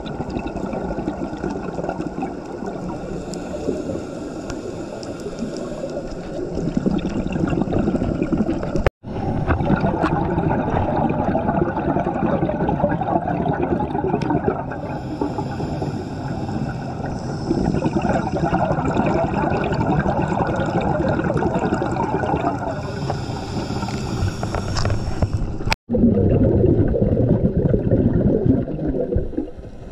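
Water gurgling and sloshing steadily, cutting out abruptly for a moment twice.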